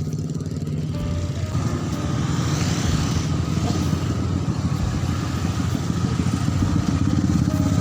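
Motorcycle engine running steadily, growing a little louder toward the end.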